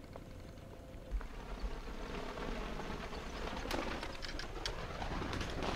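A flock of ducks flying low overhead, a rush of wingbeats that grows louder from about a second in.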